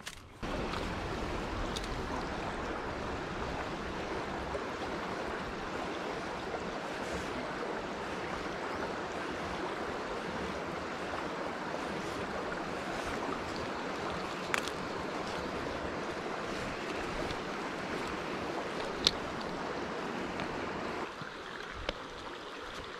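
Shallow rocky stream running: a steady rush of flowing water that drops a little near the end, with two sharp clicks in the second half.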